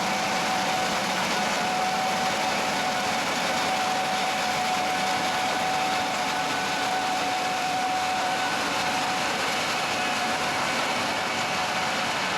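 Gleaner S67 combine running steadily at working speed: a constant loud machine drone with a steady whine on top.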